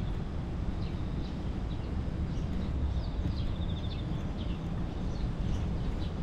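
Small birds chirping in short, scattered notes, with a brief rapid trill about three and a half seconds in, over a steady low rumble of city background noise.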